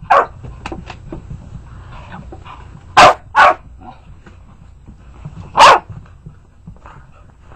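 Dogs barking in play as they tussle over a toy. There is a sharp bark at the start, two in quick succession about three seconds in and one more near six seconds, with a few softer yips between.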